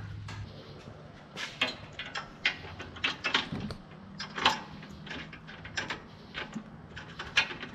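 Irregular small clicks and clatters of bolts and fastener hardware being handled while fitting a skid plate.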